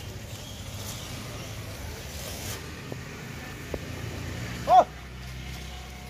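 Rhesus macaque giving one short squeal about three-quarters of the way in, rising then falling in pitch, the loudest sound here. A steady low rumble runs underneath.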